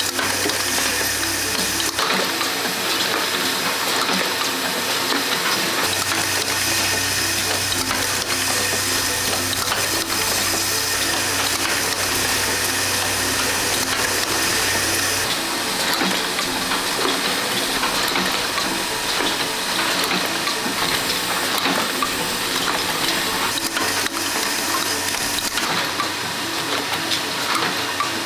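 Machinery on an oil filter production line running, a steady mechanical noise with a fast, regular repeating clatter underneath. The low hum changes abruptly several times as one machine gives way to another.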